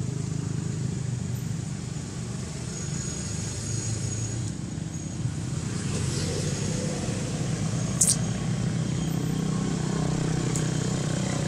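Steady low rumble of motor-vehicle engines, with one sharp click about eight seconds in.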